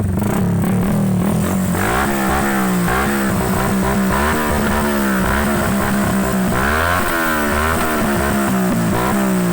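Motorcycle engine revved again and again, its pitch rising and falling with each blip of the throttle, then settling back to a steady idle near the end.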